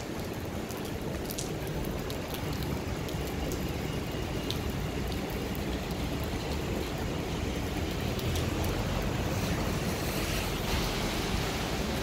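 Steady rain falling on paving: an even hiss with a low rumble beneath it and a few scattered drop ticks.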